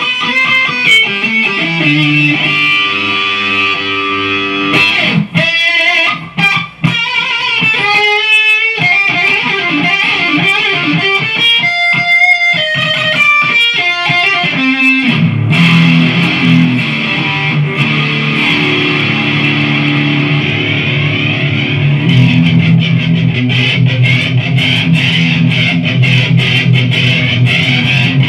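Kazuki Baby 1 mini electric guitar, modified, played through an EVH 50-watt tube amp head and cabinet and picked up by the camera's built-in microphone. Held notes and chords open it, with short breaks a few seconds in. A fast single-note lead run with bends and vibrato follows, and steady low riffing fills the second half.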